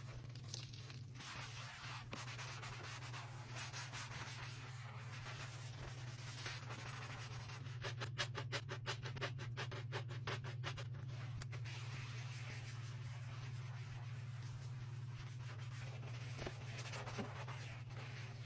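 Gloved hand scrubbing a soapy kitchen countertop: a wet rubbing and scratching sound. About eight seconds in it turns to a quick run of back-and-forth strokes, several a second, for about three seconds. A steady low hum sits underneath.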